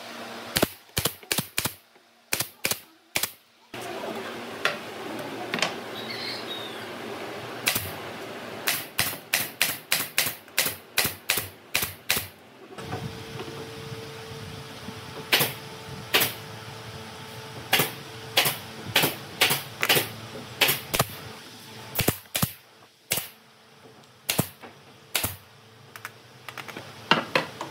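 Pneumatic brad nailer firing nails into pine boards: sharp shots, several quick runs at about three a second, then single shots a second or so apart.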